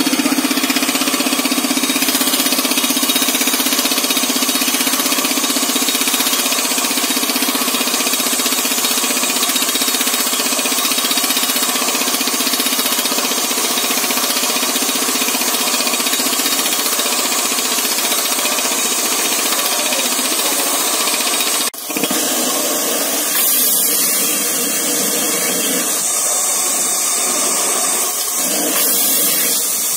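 MK5 rock drill running steadily as it bores into rock: a loud, continuous mechanical noise that dips briefly about two-thirds of the way through.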